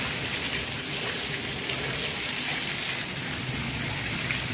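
Steady rain falling on leaves and a concrete yard: an even, unbroken hiss of drops.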